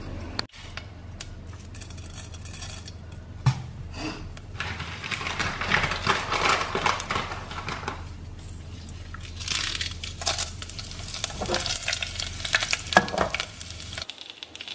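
Fenugreek seeds sizzling in hot oil in a steel pan for a tempering. Utensil clinks against the pan break into the sizzle, which swells about two seconds in and again near the middle, over a steady low hum.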